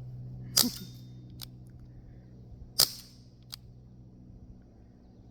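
Two shots from an Umarex Brodax CO2 BB revolver: sharp pops a little over two seconds apart, each followed by a faint tick.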